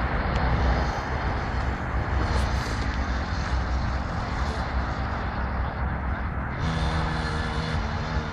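Small engines of a kids' mini dirt bike and quad running, with heavy wind rumble on the microphone. About two-thirds of the way through, a steady engine note comes to the front.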